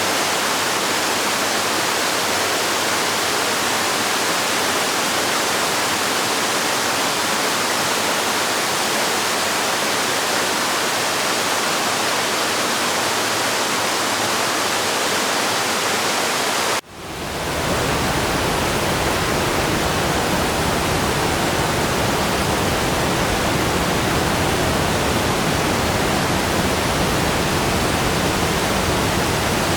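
Waterfall rushing steadily. About seventeen seconds in it cuts out for a moment and comes straight back with a deeper rumble.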